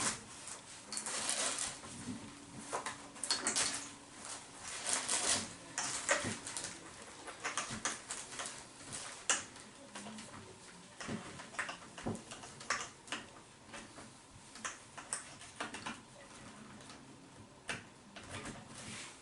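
Coil cable being wound around a metal detector's shaft: irregular rustling and scraping with light clicks of plastic parts being handled.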